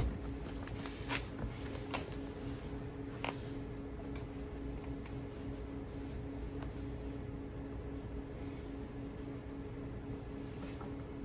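Rubber door seal being pressed back onto the car's door pillar by hand: a sharp click at the start, then a few light taps and clicks, over a steady low hum.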